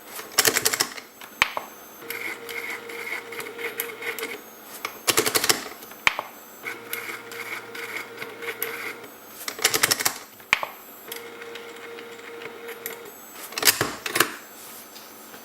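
Stepper motor of a 3D-printed Arduino combination-lock cracker whining in steady spells of about two seconds as it turns a Master lock's dial. Between spells come short bursts of sharp clicking and rattling, about every four to five seconds, with the loudest burst near the end, as the machine works through trial combinations.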